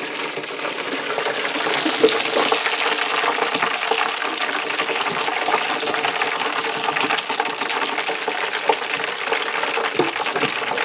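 Battered fish frying in hot oil in an electric deep fryer: a steady crackling sizzle, louder from about two seconds in.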